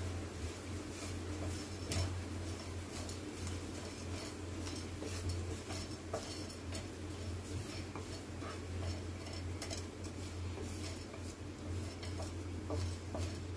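Whole spices (black peppercorns, cloves, green cardamom pods and cinnamon bark) dry-roasting on a flat non-stick pan as a spatula stirs them: irregular light clicks and taps of spatula and spices on the pan, over a steady low hum.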